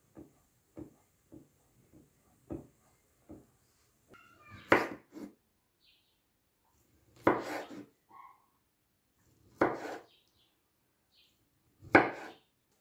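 A whisk ticking lightly against a metal pot of milk, about one tick every two-thirds of a second. It gives way to a kitchen knife slicing through a peeled kiwi and knocking on a bamboo cutting board, four loud strokes about two and a half seconds apart.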